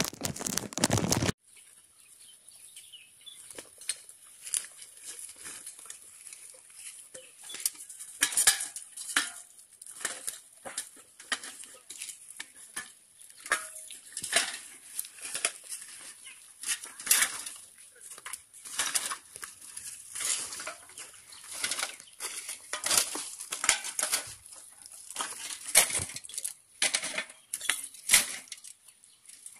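Litter being picked up by hand and dropped into a woven plastic sack: irregular clinks of glass bottles and cans and crinkling of plastic and sacking, over a steady high hiss. It opens with about a second of louder rushing noise that cuts off sharply.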